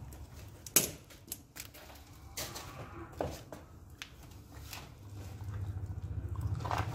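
Scattered clicks and light metal knocks of hand tools and parts being worked at an engine's belt tensioner and pulleys, then a low rumble building from about five seconds in.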